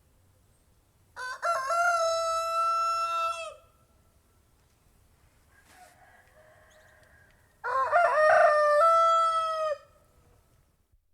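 Domestic rooster crowing twice, each crow a long held call of about two and a half seconds, the second beginning some four seconds after the first ends.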